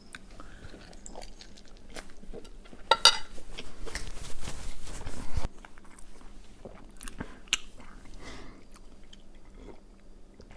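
Close-miked eating of French toast: biting and chewing with scattered clicks. About three seconds in comes a louder noisy stretch of about two seconds that cuts off suddenly, and a few sharp clicks follow near the two-thirds mark.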